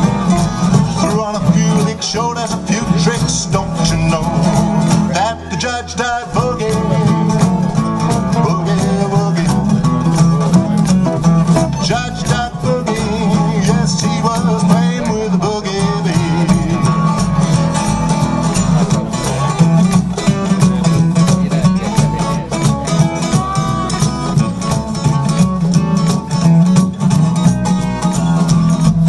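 Live acoustic country boogie band playing an instrumental break: two acoustic guitars strumming with percussion keeping a steady beat, thinning out briefly about five seconds in.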